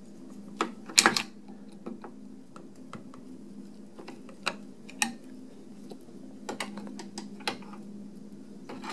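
Irregular light metallic clicks and taps from hand tools and loose parts on a Seeburg 100 jukebox mechanism as it is worked apart, the loudest cluster about a second in, over a steady low hum.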